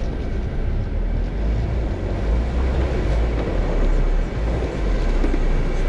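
Jeep Wrangler Unlimited engine running at low speed as it crawls over rocks and leaf litter, a steady low rumble that grows a little louder about two seconds in.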